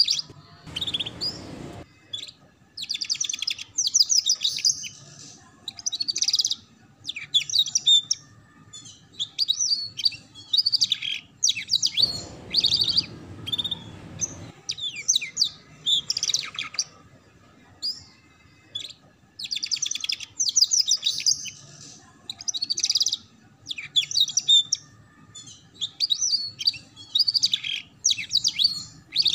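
Domestic canary singing in quick, high trilled phrases, the rapid 'ngeriwik' chatter used as a master song for young canaries, phrase after phrase with short pauses between. A low rumble sits under the song for a couple of seconds about halfway through.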